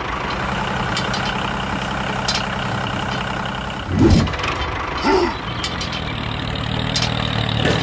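Steady engine-like running hum of a miniature DIY toy tractor towing a roller, with two short sounds that slide up and down in pitch at about four and five seconds in, the first the loudest.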